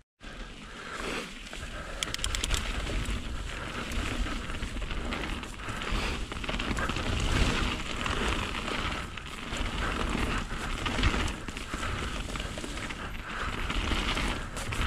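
Mountain bike ridden down a wet trail: tyres rolling and the bike rattling over rough ground, under steady wind rumble on the microphone, with a brief run of quick ticks about two seconds in.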